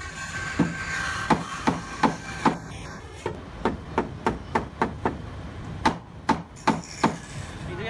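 Hammer blows knocking together the joint between a leg and a rail of a wooden furniture frame, a sharp knock about twice a second in uneven runs.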